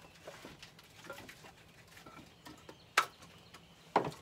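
Split firewood pieces knocking against each other as they are laid onto a woodpile: light wooden clicks, then two sharp knocks about a second apart near the end.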